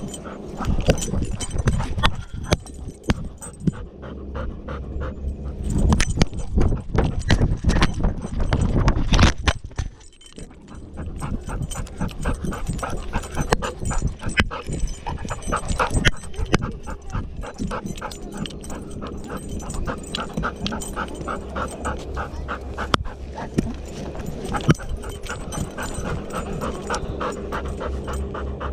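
Golden retriever panting fast and rhythmically close to the harness-mounted camera, with louder thumps and jostling in the first ten seconds.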